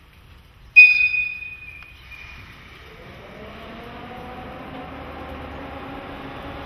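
JNR Class EF64 electric locomotive giving one short, shrill blast on its whistle about a second in, which echoes briefly. It then pulls away with a rising whine from its traction motors and gears that steadies and grows slowly louder as it approaches.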